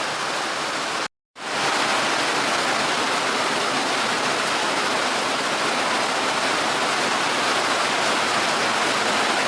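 Heavy rain pouring down in a steady, dense hiss. It cuts out completely for a moment about a second in, then resumes.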